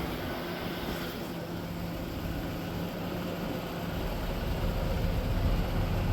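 LS-swapped V8 engine idling steadily, a little louder in the second half. It has a miss that the owner puts down to worn spark plugs and plug wires.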